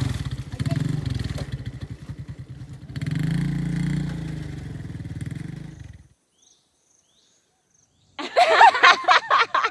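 Motorcycle engine revving hard in surges as the bike is pushed and ridden up a steep, rutted dirt climb, cutting off suddenly about six seconds in. After a short silence, high-pitched laughing voices begin near the end.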